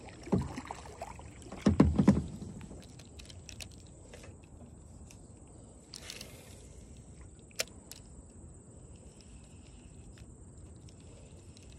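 Kayak paddle strokes through the water, with a few loud strokes in the first two seconds, followed by faint water sounds and a handful of sharp clicks.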